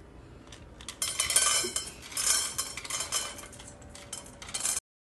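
Rapid clattering and clinking of hard objects, starting about a second in and cutting off suddenly near the end.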